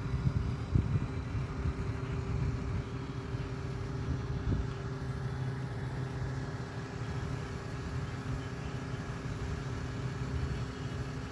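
Crane truck's engine running steadily while it hoists a eucalyptus pole, a constant low hum with a steady drone.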